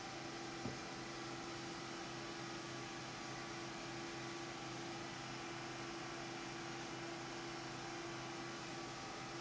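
Steady electrical hum over a constant hiss, with a single short click just under a second in.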